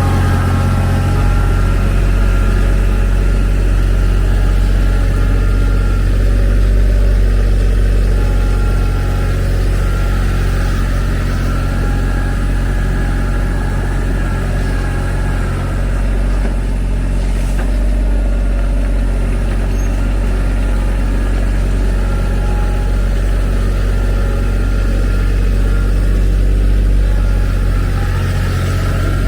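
Engine of a TYM T313 sub-compact tractor, a small diesel, running steadily.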